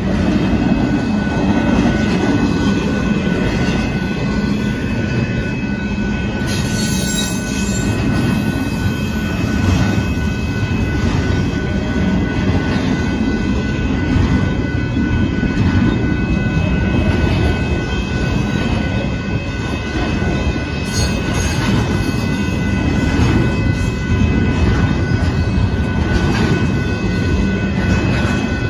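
Union Pacific double-stack intermodal container cars rolling past a grade crossing: a steady loud rumble and rattle of wheels on rail, with a thin steady high-pitched whine above it.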